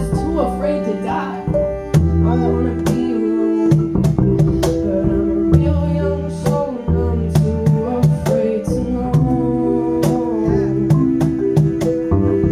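Live acoustic band music: an upright bass plays held low notes under flute and mallet-keyboard lines, with sharp percussive hits throughout.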